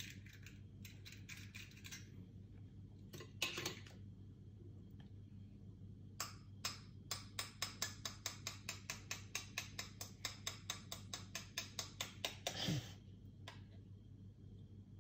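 Light, evenly spaced clicks, about four or five a second for some six seconds in the second half, after a few scattered clicks near the start, over a low steady hum.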